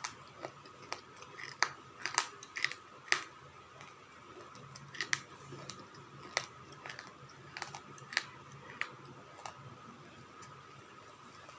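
Slate pencils being bitten and chewed: irregular sharp crunches and clicks, clustered in the first few seconds and sparser later, over a faint steady high whine.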